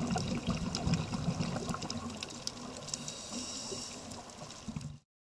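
Underwater reef sound through a dive camera's housing: a low bubbling rumble with many fine crackling clicks over it, cutting off suddenly about five seconds in.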